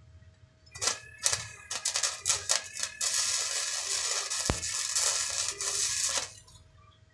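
Flux-cored MIG welder running 0.9 mm wire: the arc strikes in a series of short sputters for about two seconds, then crackles steadily for about three seconds and stops sharply.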